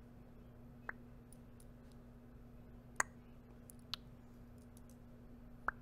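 Nail rings clicking close to the microphone: four sharp, separate clicks a second or two apart, with a few fainter ticks between.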